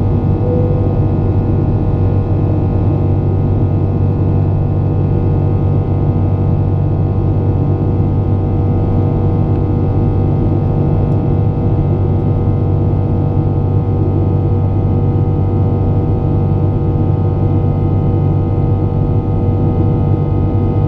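Aircraft engines droning steadily in flight, a constant low hum with several fixed tones above it.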